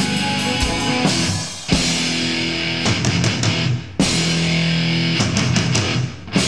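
Instrumental section of a heavy metal song: distorted electric guitars and drum kit. The band cuts out briefly about a second and a half in, again about four seconds in and once more near the end, crashing back in after each stop.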